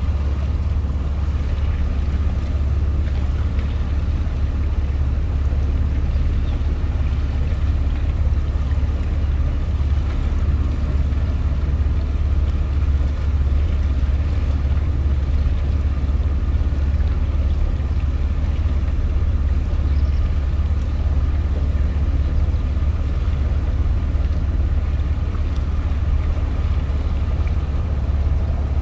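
Boat engine running with a steady low hum, unchanging throughout.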